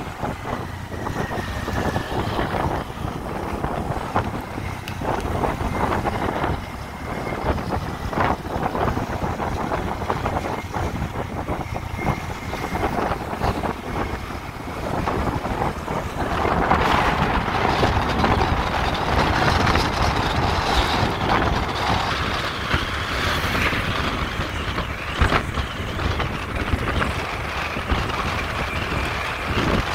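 Motorcycle ride: the engine runs steadily under heavy wind noise on the microphone, growing louder about halfway through.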